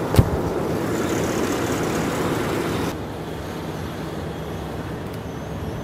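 Crane truck's diesel engine running steadily, with one sharp knock just after the start. The engine sound drops to a lower level about three seconds in.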